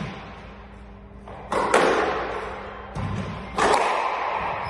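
Squash ball being struck by rackets and smacking off the court walls in a rally: sharp hits, several in quick pairs, each ringing on in a long echo.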